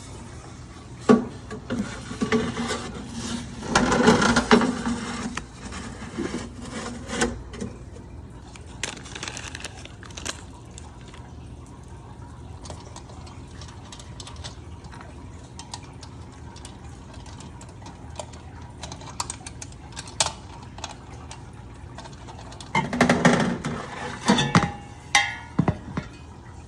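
Metal parts of a portable pizza oven and its packaging being handled: scattered clinks, knocks and light clatter, in two busier stretches near the start and near the end.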